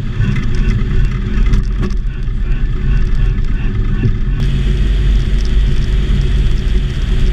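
Engine and propeller of a Volksplane VP-2 homebuilt airplane running steadily, heard from inside the open cockpit. About four seconds in, the sound turns suddenly brighter and hissier.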